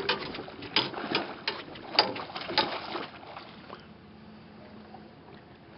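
Sounds on deck of a fishing boat while a salmon is being fought: a run of short, sharp, irregular noises for about three seconds, then quieter, with a faint steady low hum.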